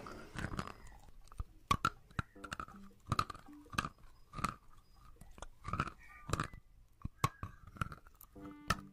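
Close-miked ASMR biting and chewing of edible chalk sticks: a run of sharp, irregular crunches as the candy chalk is bitten and chewed.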